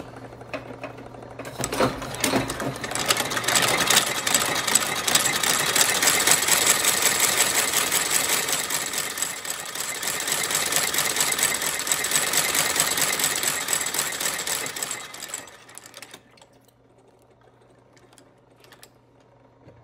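Curved-needle K stitcher, an industrial leather stitching machine, running fast with a rapid, even mechanical clatter as it sews a sole while its knife cuts the channel the stitches lie in. It stops about 15 seconds in, leaving only the drive motor's low hum.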